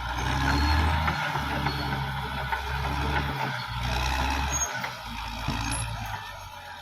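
Caterpillar D6R XL bulldozer at work: its diesel engine runs with a deep drone that shifts in level every second or two as the load changes, over a steady mechanical clatter and hiss.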